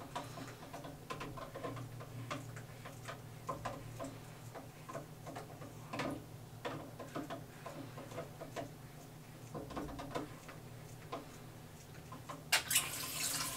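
Plastic aqua leash stirring water in a small plastic Sea-Monkeys tank. It gives faint, scattered clicks and taps as it knocks against the tank and the plastic treasure chest, then a brief rustling swish near the end.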